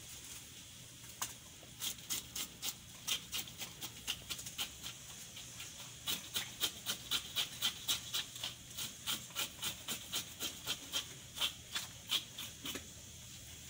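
Knife scraping the scales off a surgeonfish on a wooden board, in quick short strokes about three a second, starting about a second in and stopping shortly before the end.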